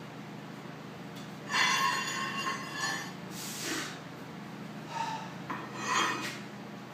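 Steel scraping and clinking in two bouts as a pry bar and steel plates are worked under the base of a milling machine, with a short hiss between them.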